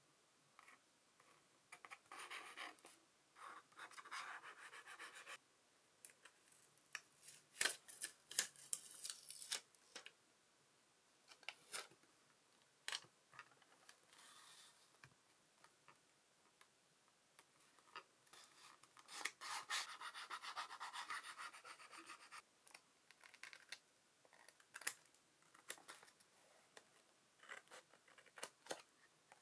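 Close-up paper-crafting sounds: sticker paper rustling and crackling as it is handled with tweezers, two stretches of steady rubbing as stickers are smoothed onto a paper journal page, and scattered light clicks, with small scissors snipping sticker paper at the page edge near the end.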